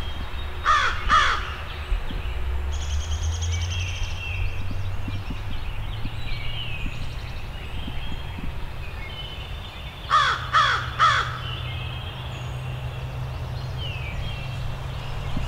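A crow cawing, two caws about a second in and three more about ten seconds in, over small songbirds chirping and a steady low hum.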